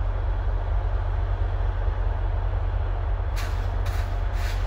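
VIA Rail diesel locomotive running with a steady, heavy low rumble. Near the end there are three short bursts of air hiss from its air brakes.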